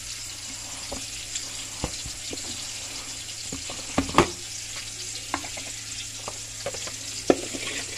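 Oil sizzling steadily as food deep-fries in a pan, with a few sharp knocks and clinks of kitchen utensils, the loudest about four seconds in and just after seven seconds.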